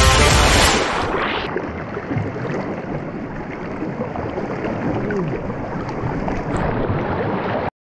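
A fast-flowing river rushing and splashing close to the microphone. It is louder for the first second or so, then settles into a steady rush.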